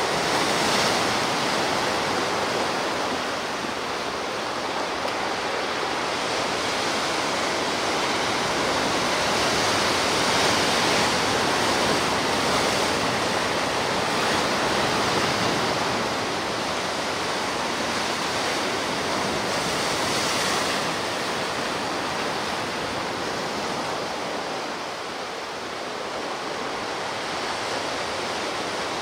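Sea surf washing on the shore: a continuous rush of water that swells and eases slowly as the waves come in.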